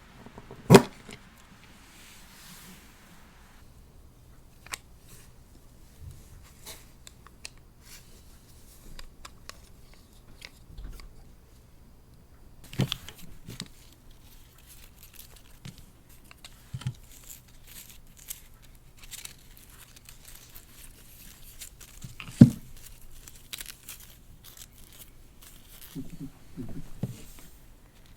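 Crinkly packaging being handled by hand: rustling and crinkling with scattered small clicks and taps, and two sharp knocks, one near the start and one past the middle.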